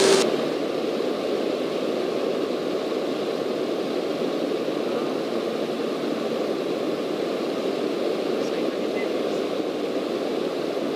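Steady engine drone and airflow noise inside a Cessna light aircraft's cabin in cruise flight. A louder rush cuts off just after the start.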